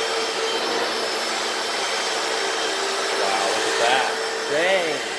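Hoover FloorMate wet floor cleaner running, its suction motor giving a steady rushing whine as its spinning brushes scrub a stain. Near the end there are a few short rising-and-falling tones.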